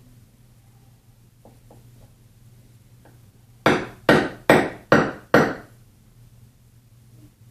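Five quick hammer blows, evenly spaced, each with a short ring, struck at a broken nail stuck in a wooden table leg.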